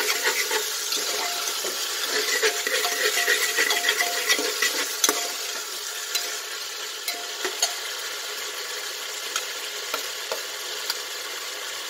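Sliced onions and green capsicum sizzling in oil over a high flame, stirred with a steel ladle that scrapes and knocks against the metal pot. The stirring is busiest in the first half; after that the frying sizzles steadily with a few sharp spoon clicks.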